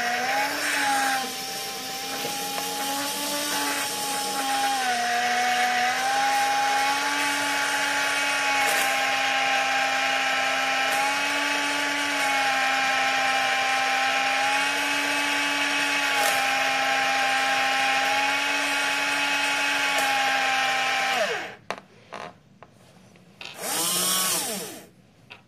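Electric motor and gearbox of a radio-control-converted 1/35 Sherman model tank running with a steady whine that dips and recovers slightly in pitch. It stops about 21 seconds in. A few short blips follow, then one brief run near the end that rises and falls in pitch.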